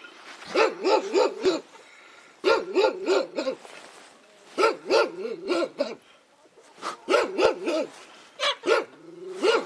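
Dog barking in rapid volleys of about four or five barks, with short pauses between the volleys.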